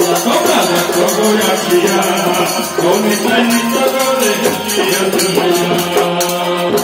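Kirtan music: voices singing over a fast, steady beat of jingling metal percussion. It cuts off right at the end.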